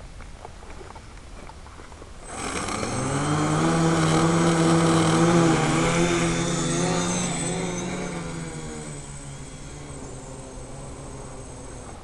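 Feiyu X4 quadcopter's motors and propellers spinning up suddenly about two seconds in, buzzing loudly with a high whine, then easing off gradually over several seconds as the throttle comes down.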